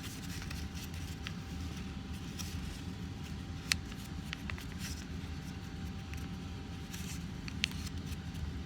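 Origami paper being accordion-folded and creased by hand: faint scattered crinkles and soft taps, the sharpest near the middle, over a steady low room hum.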